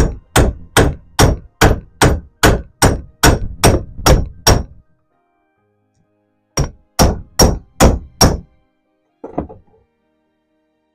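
A big hammer striking a block of aluminium laid over a metal cable tang clamped in a bench vise, bending the tang up to an angle. About a dozen evenly spaced blows, roughly two and a half a second, then a pause, five more blows and one lighter one near the end; each blow is a sharp knock with a brief metallic ring.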